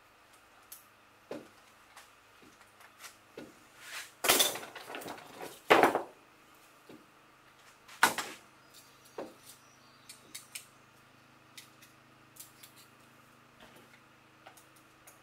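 Clicks, knocks and clatter of a Black and Decker electric fillet knife being handled as its blades are fitted into the handle, with louder clatters about four, six and eight seconds in.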